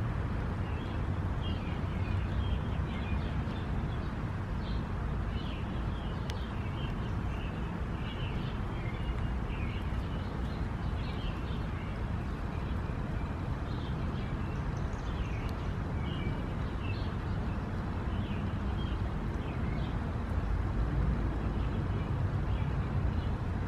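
Outdoor ambience: small birds chirping repeatedly, in short high calls, over a steady low rumble.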